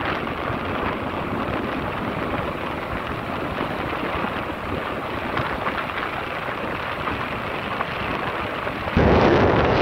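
Wind rushing over the camera microphone of a moving motorcycle, a steady rushing noise. It jumps suddenly louder about nine seconds in.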